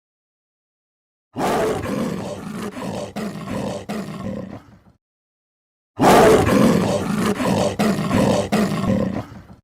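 An animal's loud, rough roar-like calls in two separate takes of about three and a half seconds each, split by a silent gap.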